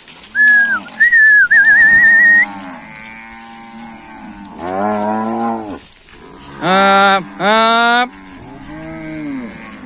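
Cattle mooing as a herd is driven along, several drawn-out calls. A herder's high wavering whistle runs through the first couple of seconds, and two short loud shouts to the herd come a little past the middle; the shouts are the loudest part.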